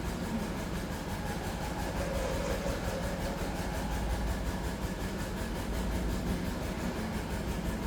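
Steady low mechanical rumble, like a running engine, with no breaks.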